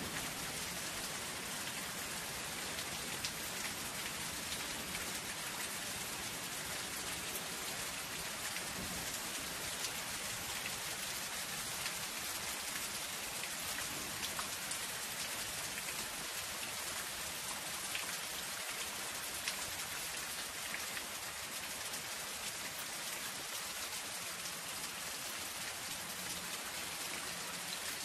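Soft rain falling steadily on a zinc roof: an even hiss of rain dotted with many small, sharp drop ticks on the metal.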